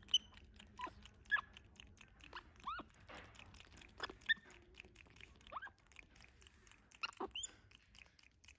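Capuchin monkeys giving about ten short, high squeaks and chirps that each drop sharply in pitch, scattered through, over soft mouth-smacking clicks from close grooming.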